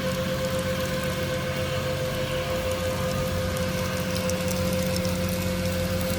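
Large farm tractor pulling an air seeder, its engine running steadily under load with a constant mid-pitched whine over the rumble.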